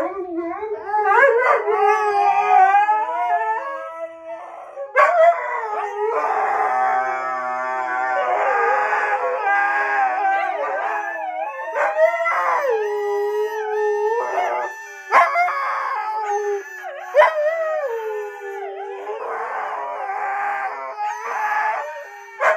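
Several huskies howling together in long wavering calls that overlap and glide up and down in pitch.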